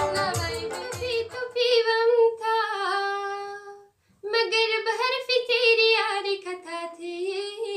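A young woman singing a Tajik song solo without accompaniment, in long held, ornamented phrases with a short break about four seconds in. The keyboard accompaniment dies away in the first second.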